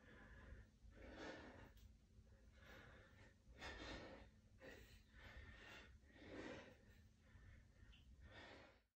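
Faint breathing of a man, about six breaths spaced one to two seconds apart, each a soft rush of air.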